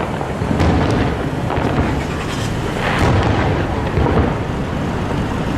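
Aerial fireworks shells bursting in quick succession, a sharp boom about every second over a continuous rolling rumble of echoing explosions.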